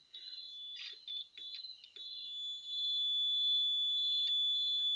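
A multimeter's continuity buzzer sounding a high-pitched beep tone. It breaks off in short gaps over the first two seconds, then holds steady and louder from about two and a half seconds in.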